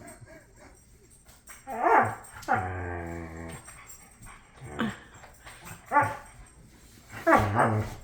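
Pet dog barking and vocalising in play: several short separate barks, and one longer drawn-out call about two and a half seconds in.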